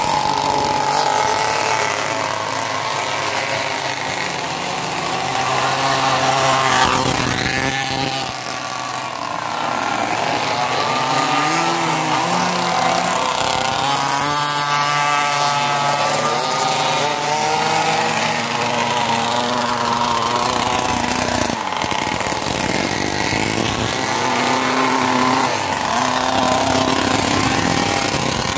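Several small two-stroke pocket bike engines buzzing continuously at high revs. Their pitch rises and falls as the riders open and close the throttle, with one sweeping sharply in pitch about halfway through.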